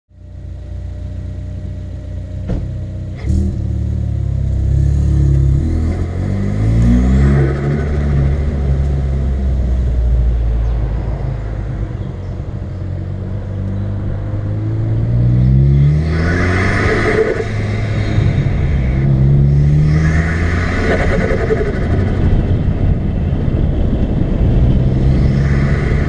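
Ford Focus ST's turbocharged 2.0-litre EcoBoost four-cylinder accelerating in several runs, the engine note climbing each time, with the intake's induction noise. After the later pulls, as the throttle lifts, the turbo gives short flutter and whoosh bursts through the Injen intake, with the stock bypass valve, three times in the second half.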